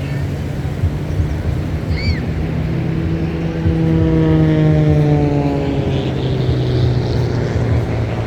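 Piston-engined aerobatic propeller plane flying past, loudest about four seconds in, its engine note then dropping steadily in pitch as it moves away.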